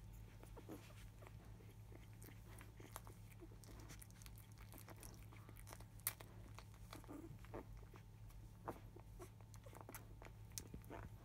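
Near silence: a steady low hum with faint, scattered small clicks and soft rustles, and one sharper click about six seconds in.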